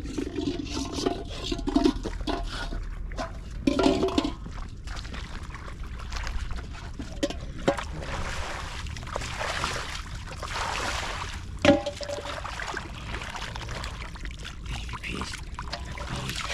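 Shallow pond water sloshing and trickling as it is stirred by hand, with scattered sharp splashes, the loudest a little before four seconds and just before twelve seconds in.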